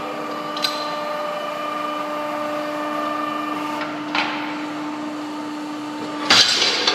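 Steady machine hum in a metal workshop, broken by metal clanks as steel parts of an ironworker (punch-and-shear machine) and a steel bar are handled: a light knock about half a second in, a clank about four seconds in, and the loudest clangs near the end.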